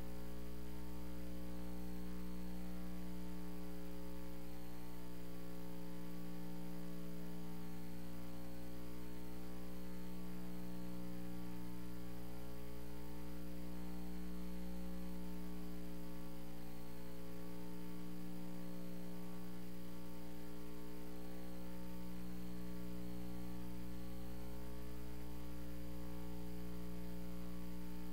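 Steady electrical mains hum with many overtones, unchanging throughout, from the chamber's sound and recording system.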